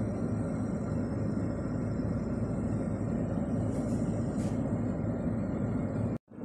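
Car driving slowly: a steady engine and tyre-on-road rumble, with two short hisses just under a second apart about four seconds in. The sound drops out for a moment near the end.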